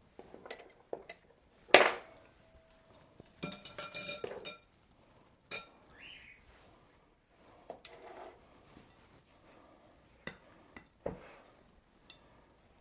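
Kitchenware being handled on a counter: a spatula knocking in a batter bowl and glass bowls clinking. Scattered clinks and knocks, the loudest about two seconds in, with a run of ringing clinks around four seconds in.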